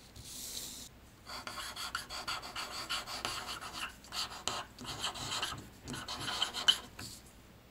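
Graffiti being painted on a wall: rasping, scratchy strokes in runs of about a second with short breaks, a brief high hiss near the start, and one sharp click a little before the end.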